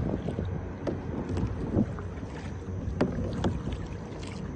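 Paddling a small kayak on a river: wind rumbling on the microphone, with a few short splashes and knocks from the paddle.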